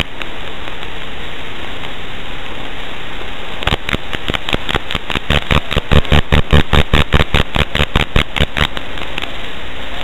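Steady static hiss from an analog FPV video link's audio channel. From about four seconds in until about nine seconds in comes a fast run of loud crackling clicks, roughly six a second, typical of the analog signal breaking up.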